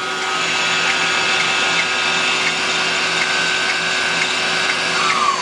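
Citizen L32VII CNC Swiss lathe main spindle running at 5,000 RPM: a steady high whine over machine hum, with faint regular ticking. Near the end the whine falls in pitch as the spindle starts to slow down.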